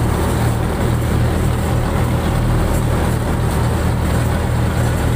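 Fishing boat's diesel engine running steadily at a constant speed: a loud, even, low drone with a pulsing hum.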